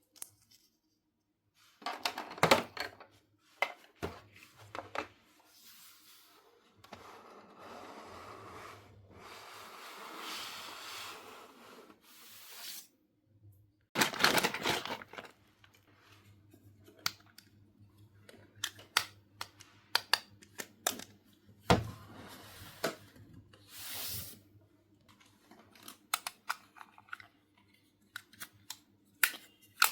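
Small plastic toy pieces and packaging being handled: scattered clicks and taps, a couple of louder crackles, and a long rustle of plastic wrapping in the middle.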